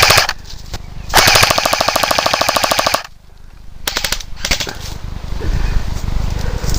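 Airsoft rifle firing on full auto: a short burst at the start, then a rapid stream of shots lasting about two seconds, and a few more shots about a second later.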